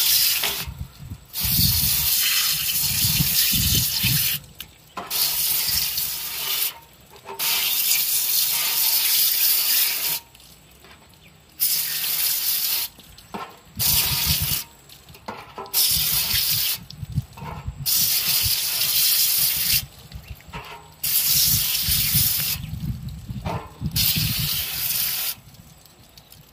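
Garden hose spray nozzle hissing as water is sprayed over raw nurse shark meat held in a hand and splashing onto a table. The spray starts and stops about a dozen times, in runs of one to three seconds, and stops near the end.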